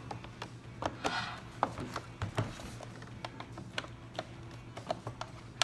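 Irregular light clicks and taps of a small pick and fingers working at the plastic housing of an Ecovacs Deebot M80 Pro robot vacuum, prying at the clip tabs that hold a cover on.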